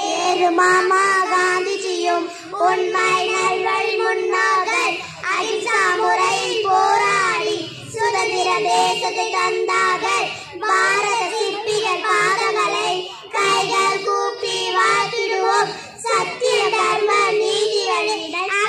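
Young schoolgirls singing a Tamil Independence Day song, in phrases of a few seconds with short breaths between them.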